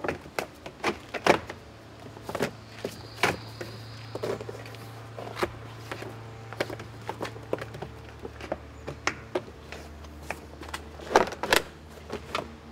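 Vinyl shake siding panel clacking and knocking against the wall as it is positioned and pressed into place: a string of sharp, irregular clicks, loudest near the start and about 11 seconds in. A steady low hum runs behind it and drops in pitch about 8 seconds in.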